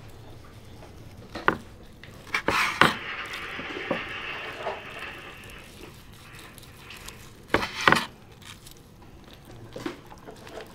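Kitchen knife cutting cooked goat meat on a wooden cutting board: several sharp, irregularly spaced knocks of the blade striking the board, with softer slicing sounds between.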